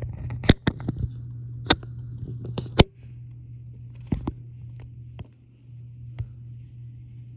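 A steady low hum with a series of sharp clicks and taps: about seven in the first three seconds, then a few fainter ones.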